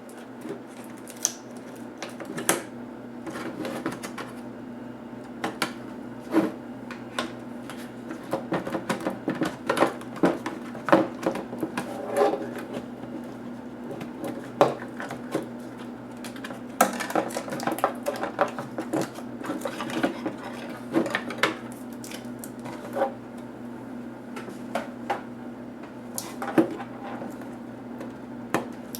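Laptop parts being handled during disassembly: irregular small plastic and metal clicks, taps and clatter, thickest in the middle stretch, over a steady low hum.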